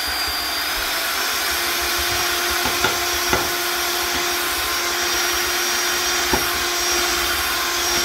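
Handheld electric mixer running steadily as its beaters work through cake batter in a stainless steel pot while flour is added, with a few short clicks over the motor's hum.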